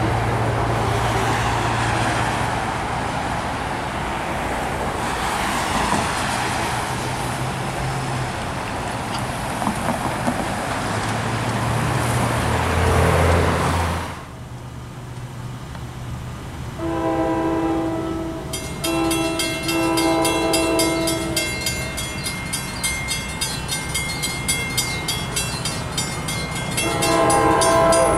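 A steady rumble of engine and traffic noise gives way at a cut to grade-crossing bells ringing with a rapid, even stroke. Over the bells, an approaching NJ Transit PL42AC locomotive sounds its five-chime Nathan K5LA air horn for the crossing: a long blast, a short one and another long one, then a further blast near the end.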